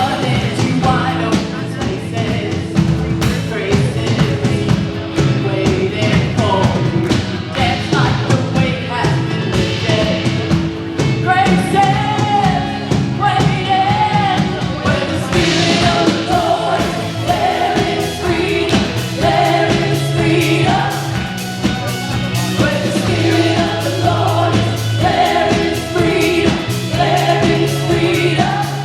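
Live worship band playing with singers, sung melody over bass, drums and other instruments.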